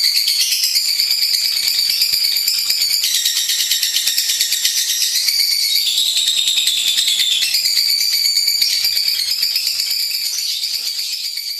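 Lovebird singing a long, unbroken, high-pitched trilling chatter made of very rapid strokes, its pitch pattern shifting every second or two; it fades near the end.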